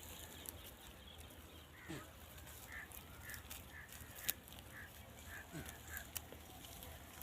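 Faint farm fowl calling: a run of about eight short, honking calls, roughly two a second, with a few sharp clicks among them.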